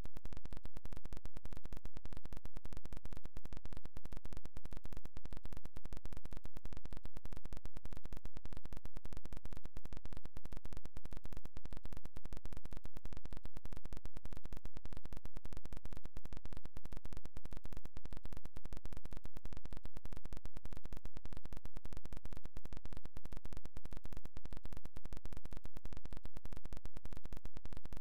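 Steady digital static: a dense, even stream of clicks at one constant level, with no natural sound in it, typical of a glitched or corrupted audio track.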